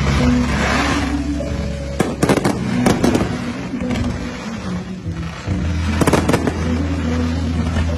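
Aerial fireworks bursting in quick clusters of sharp bangs, about two seconds in and again about six seconds in, over music with long low notes.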